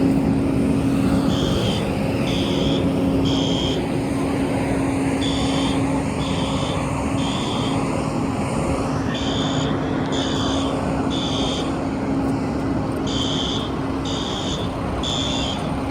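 Building fire alarm horns sounding the three-beep evacuation pattern, in groups of three beeps about a second apart with a longer pause between groups; here the building's alarm was set off falsely. Underneath runs the steady rumble and hum of idling fire apparatus.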